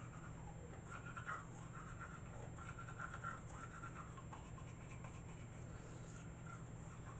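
Teeth being brushed by hand with an uncharged electric toothbrush: faint, irregular scratchy scrubbing of the bristles, over a steady low hum.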